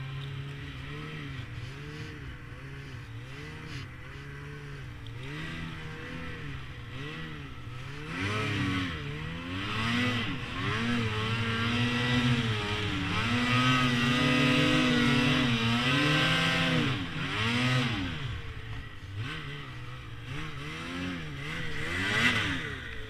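Snowmobile engine running under changing throttle, its pitch repeatedly rising and falling. It revs louder and harder from about a third of the way in until near the end, eases off, then gives one more short rev.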